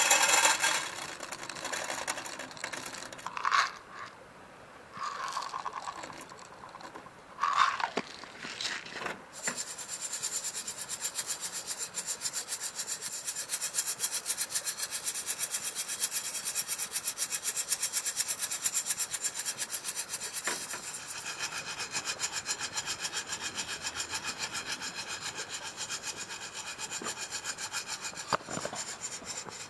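A hand saw cutting wood. A few short separate scrapes and knocks come first, then from about a third of the way in a long run of quick, even sawing strokes.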